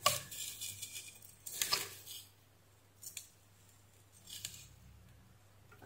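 Light scraping and small metallic clicks as the burnt, corroded leaf contacts of a steam iron's thermostat are handled: two short scrapes in the first two seconds, then a few faint ticks.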